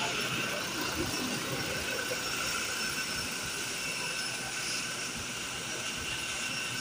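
Toyota Fortuner engine idling steadily with the hood open, a constant, even running noise.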